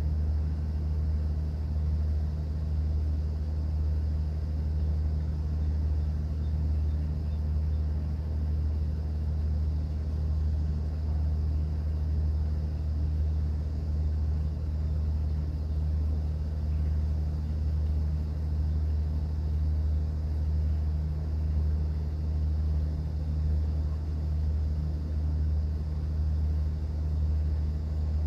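Steady low drone of a cruise boat's engine heard on board, unchanging, with a faint hiss above it.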